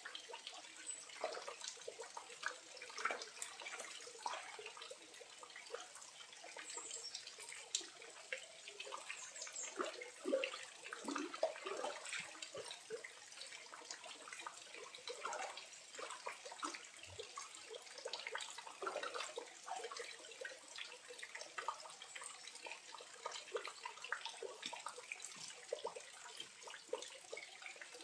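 Small waterfall running with a low flow: water trickling and splashing in a constant, irregular patter of small drops and gurgles.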